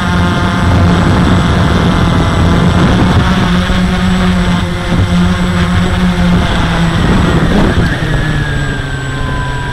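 Walkera QR X350 quadcopter's four electric motors and propellers, heard close up from the onboard camera, running with a steady buzzing whine. About eight seconds in, the pitch glides down and the sound gets a little quieter as the motors slow.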